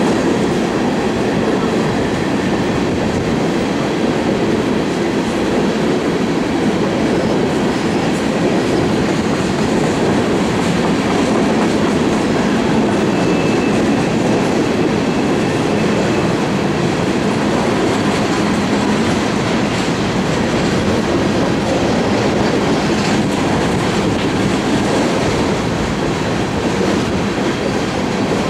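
Empty coal hopper cars of a freight train rolling past: a steady, loud noise of steel wheels on rail with a fine, continuous clatter. A faint high-pitched squeal comes in for a few seconds near the middle.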